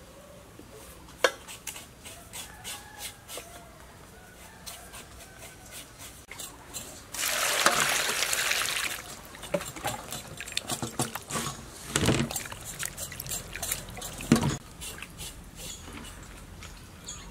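Water poured over tomatoes, cucumbers and pineapple in a metal bowl, splashing for about two seconds midway as a hand rubs the produce clean. Around it come scattered light clicks and a few sharper knocks, two of them louder later on.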